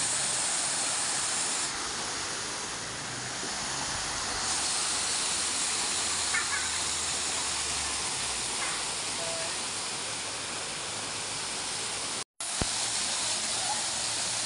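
Waterfall splashing down a rock face into a pool: a steady rushing, hissing noise, which cuts out for a split second about twelve seconds in.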